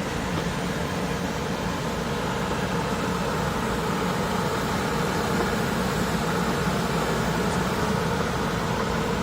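Electric sidewalk sweeper running, a steady even mechanical hum with a faint whine.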